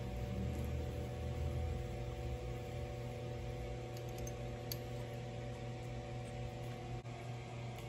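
Steady mechanical hum of shop room tone with a few faint light clicks as a tap is turned by hand into aluminum round stock.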